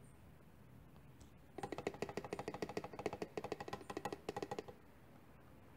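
Motor oil glugging out of a plastic quart bottle into a funnel: a quick run of gulps, about ten a second, as air bubbles back into the bottle. It starts about a second and a half in and stops about three seconds later.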